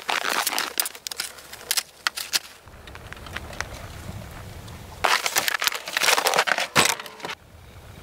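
Dry snow crunching underfoot, with rustling clothing and gear, in two spells: the first two and a half seconds and again from about five seconds in, with a lull between.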